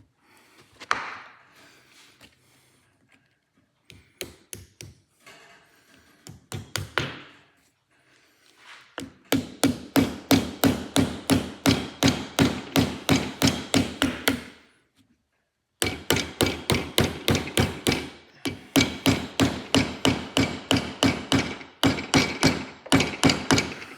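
A hammer taps a new slotted ABS reluctor ring onto an MG ZT260 rear drive shaft, driving the ring on cold. A few scattered knocks come first, then two long runs of quick, even taps of about five a second, with a break of about a second between them.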